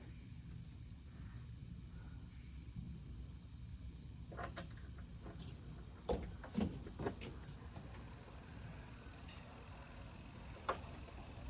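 A few sharp clicks and knocks from parts and tools being handled during reassembly of a tractor's fuel system: one, then a quick group of three about six seconds in, then one more near the end, over a low steady rumble.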